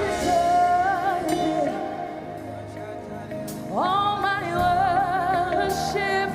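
Gospel worship singing over musical backing: a voice holds long notes with vibrato, sliding up to a high held note just before four seconds in.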